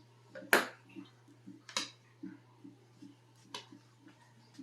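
Hard objects knocking and clacking as they are handled: three sharp clacks, the loudest about half a second in, with fainter ticks between, over a steady low hum.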